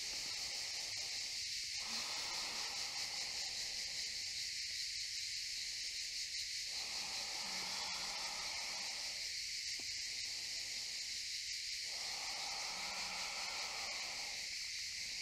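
Cicadas singing in chorus: a steady, high-pitched drone.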